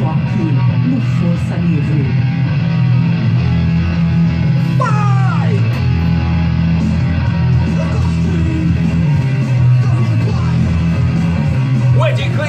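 Rock music with electric guitar and bass guitar playing steadily.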